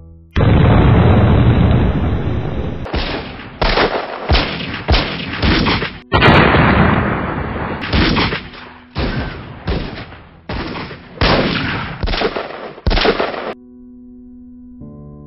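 Gunfire: a sudden loud blast that lasts a couple of seconds, then a string of single shots about every half second. About six seconds in comes a second long blast and another run of shots, which stops abruptly near the end.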